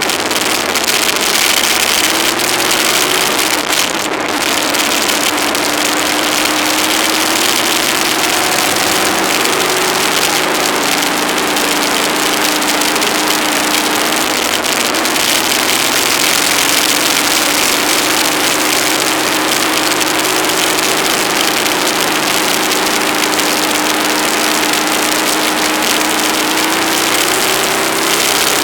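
Aprilia ETV 1000 Caponord's V-twin engine running on the move, its pitch drifting slowly up and down, under a heavy steady hiss of wind noise on the camera's microphone.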